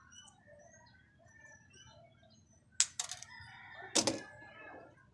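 Chickens clucking and calling faintly. Three sharp knocks a little past halfway, the last of them the loudest.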